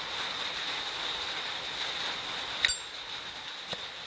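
Zippo lighter being handled: one sharp metallic click with a brief ring about two and a half seconds in, then a fainter click a second later, over a steady hiss with a faint high whine.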